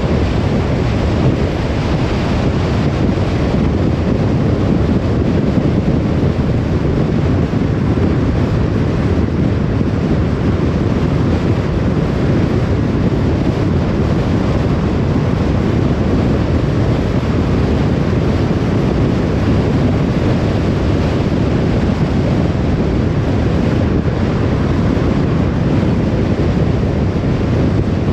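Car driving at a steady speed: an even, deep rushing of tyre and wind noise that holds constant throughout.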